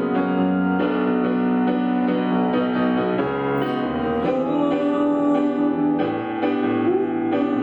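Live instrumental band music led by piano-like keyboard chords that change about once a second over a low bass line.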